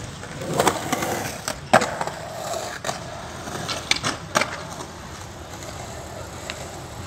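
Skateboards rolling on a concrete skatepark, with several sharp clacks of boards hitting the concrete in the first few seconds, the loudest a little under two seconds in, then quieter rolling.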